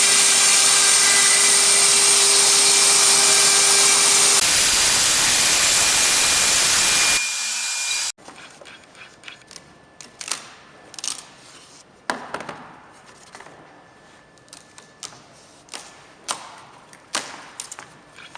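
CNC router spindle running and drilling into the workpiece: a loud steady whine over cutting noise for about eight seconds, changing character partway through. It then cuts off abruptly, leaving a much quieter stretch of scattered clicks and knocks.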